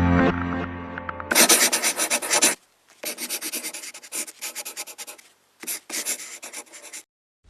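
Music fades out, then a series of scratchy rubbing and scraping strokes in bursts with short pauses.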